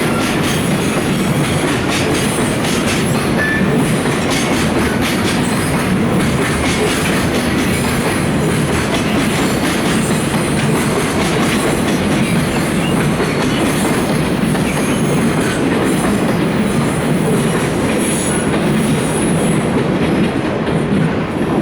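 Container freight train rolling past, its wagon wheels clattering over the rail joints with a faint high wheel squeal now and then.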